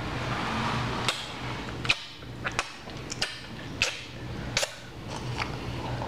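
A plastic spoon tapping and scraping against a plastic dessert cup and its domed lid in a series of short, sharp clicks, about eight in all at uneven intervals, over a steady low hum.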